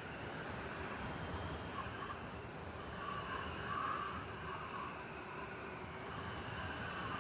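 Blizzard wind blowing steadily over a city, with a low rumble of traffic underneath; a gust swells about three to four seconds in.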